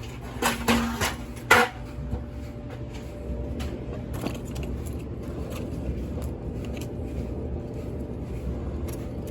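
Coin-operated commercial gas dryer running with a steady hum, just started with its exhaust vent newly cleared of a blockage that had made it overheat and trip its thermostat. A few sharp knocks come in the first second or so, the loudest about a second and a half in.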